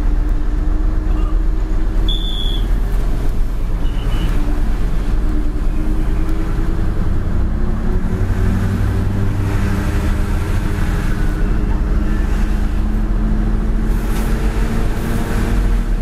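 Mitsubishi Fuso truck's diesel engine running on the move, heard from inside the cab with road noise, its pitch climbing slowly as the truck gathers speed. A brief high beep sounds about two seconds in.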